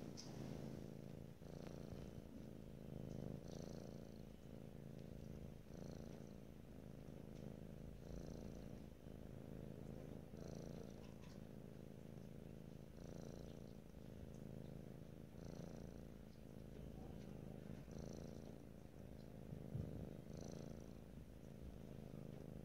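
Tabby kitten purring steadily and softly, the purr swelling and easing with each breath about every two and a half seconds. One brief soft knock comes near the end.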